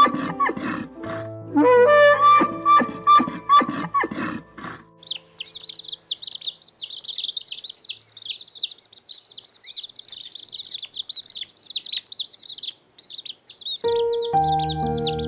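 Instrumental music for the first few seconds. Then a dense chorus of many baby chicks cheeping, high-pitched and unbroken. Music comes back in near the end under the cheeping.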